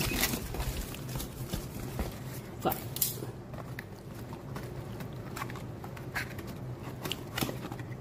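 Cardboard box flaps and plastic packaging being handled while a boxed product is unpacked: rustling and crinkling with scattered small clicks and knocks.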